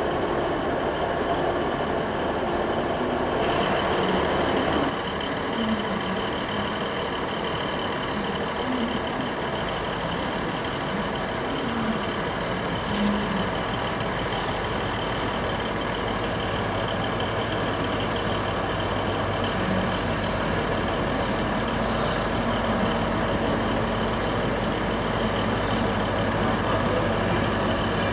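Diesel train sound: a Class 150 diesel multiple unit running away along the tracks, then a First Great Western HST's Class 43 power car rolling into the platform and standing with its diesel engine running. From about halfway through, the engine's steady drone settles in as the train stands.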